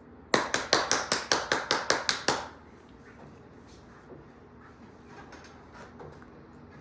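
A bell rung rapidly: eleven sharp strikes at about five a second, stopping about two and a half seconds in. A few faint light knocks follow.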